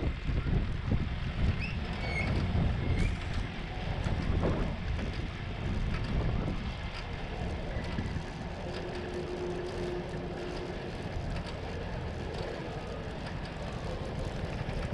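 Wind buffeting the microphone of a handlebar-mounted GoPro on a moving bicycle, gusty in the first half and easing to a steadier rush.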